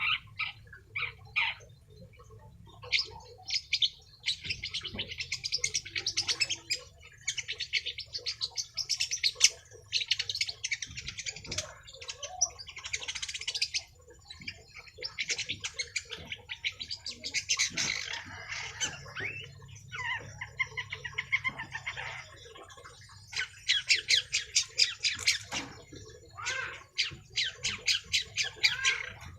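Young long-tailed shrike (cendet) singing persistently, running through its repertoire of learned mimicked calls: bursts of rapid chattering trills and repeated high notes lasting a few seconds each, broken by short pauses.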